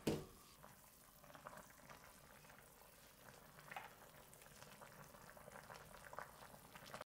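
Pan of beef-meatball and napa cabbage soybean-paste soup simmering, with faint bubbling and small scattered pops. A brief louder sound comes right at the start.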